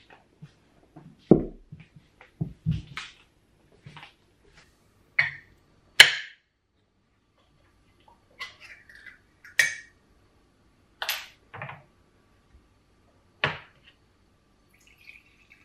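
A string of separate close-up clicks, crunches and knocks: a cat chewing lettuce, then a drink can being picked up and handled over a wooden tray, with the loudest sharp knock about six seconds in.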